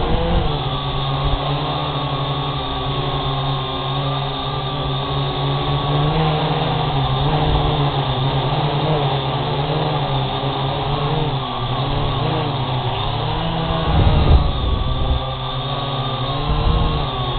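Syma X8G quadcopter's four motors and propellers running, a steady buzzing whine whose pitch wavers up and down as it flies, with a burst of low rumble about fourteen seconds in.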